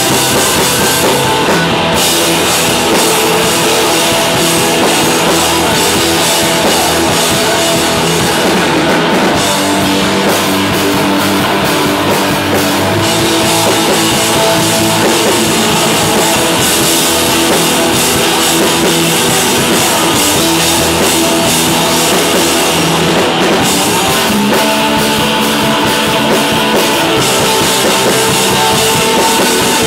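A rock band playing live and loud: two electric guitars, bass guitar and a drum kit, running without a break.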